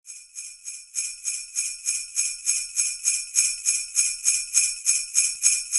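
Sleigh bells shaken in a steady rhythm, about three to four jingles a second, getting louder about a second in.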